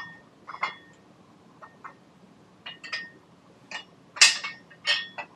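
Steel tow-hitch parts clinking and knocking together as the shank of a 3-in-1 trailer tow hitch is worked into a welded receiver hitch plate. It is a series of about ten short metallic clinks, some ringing briefly, and the loudest comes about four seconds in.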